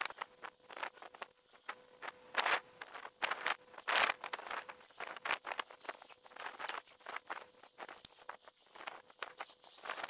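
Scattered rustles and light clicks of camping gear being handled: a hammock pulled from its stuff sack and its tree straps worked, with footsteps in ground vegetation.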